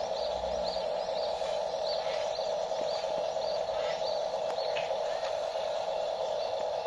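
Steady whir of a small electric motor, with a faint high chirp repeating about twice a second.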